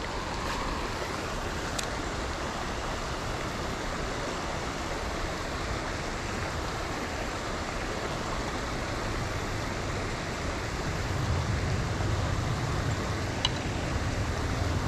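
Shallow creek water running over rocks in a steady, even rush. A low rumble joins in during the last few seconds.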